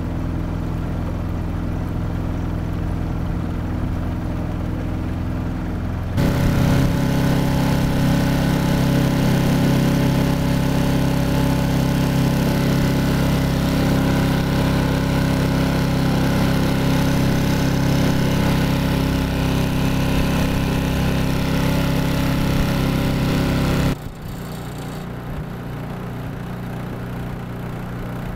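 Small outboard motor running steadily at cruising speed, driving a canoe. About six seconds in, the sound jumps louder, with the motor's steady hum heard up close, and a few seconds before the end it drops back to a quieter steady hum.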